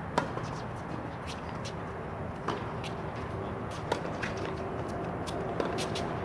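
Tennis ball struck back and forth by rackets in a doubles rally on a hard court: sharp pops every second or two, the first the loudest, over a steady outdoor background hum.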